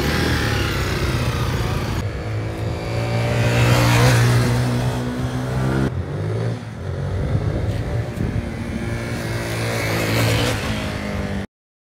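Zontes 350 T ADV motorcycle's single-cylinder engine pulling away and riding past, its pitch rising and falling, loudest about four seconds in. The sound comes in three short edited pieces and cuts off suddenly near the end.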